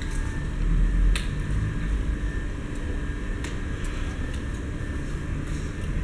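Airport terminal ambience heard from behind the apron windows: a steady low rumble and hum with a faint steady tone, broken by a few sharp clicks, the loudest about a second in.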